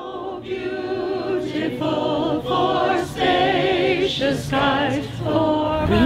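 Mixed-voice choir singing held chords in short phrases, with brief breaks between them.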